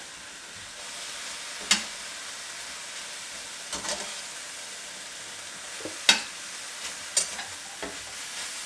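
Vegetables sizzling steadily as they stir-fry in a non-stick wok, with a few sharp clacks of the spatula against the pan, the loudest about two and six seconds in.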